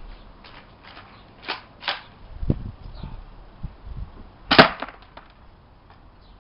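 Spring-powered airsoft pump shotgun, a replica of the Franchi SAS-12, being worked and fired: two plastic clacks of the stiff pump action, then a sharp snap of a shot a little over four and a half seconds in, with a few lighter clicks of handling around it.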